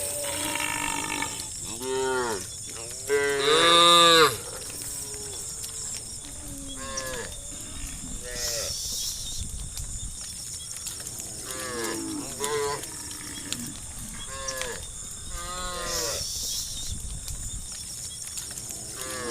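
Cows mooing again and again, about ten separate long calls that rise and fall in pitch, the loudest about four seconds in.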